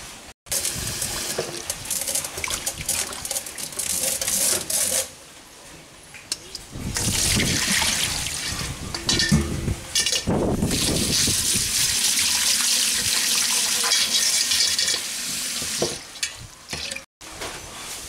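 Tap water running and splashing into a stainless steel sink as tadpoles are rinsed in a mesh strainer, with a few knocks of metal. The water runs in two stretches, the second longer and louder, with a lull of about two seconds between them.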